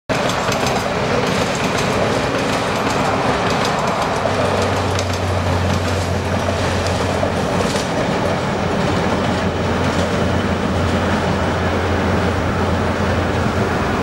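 Passenger train running past on a coastal line: a steady rumble and clickety-clack of wheels on the rails, with a low drone joining about four seconds in.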